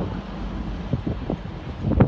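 Wind buffeting the microphone over the low rumble of a TransPennine Express Class 185 diesel multiple unit pulling away.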